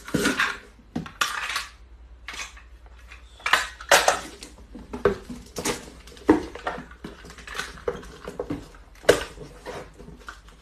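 Small cardboard boxes being handled and stacked on a tiled floor: an irregular run of short rustles, scrapes and knocks.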